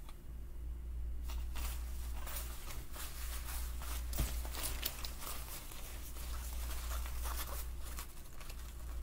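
Clothing being handled and turned over: a run of soft irregular rustles and crinkles of fabric, with one sharp click a little over four seconds in.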